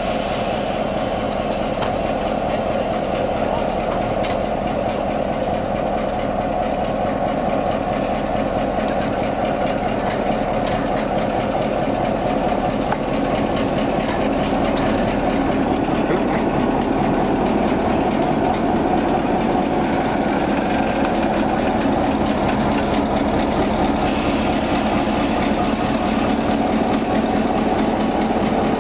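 Victorian Railways T-class diesel-electric locomotive running at low speed, its engine giving a steady drone that grows a little louder as it comes close. A high hiss joins in about four seconds before the end.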